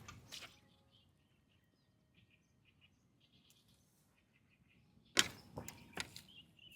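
Faint, distant small birds chirping over an otherwise quiet pond bank, then a few sharp clicks and knocks about five seconds in.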